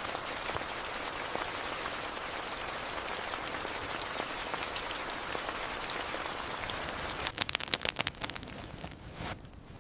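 Steady rain pattering on a surface, an even fine crackling hiss. About seven seconds in, a quick run of sharp clicks sounds louder than the rain, and after it everything is quieter.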